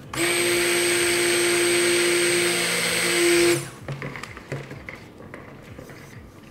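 Electric stick blender running in a tub of raw soap batter, a steady motor hum for about three and a half seconds that gets louder just before it cuts off suddenly. The blending is kept short so the oils and lye water reach only a thin trace. A few soft knocks follow.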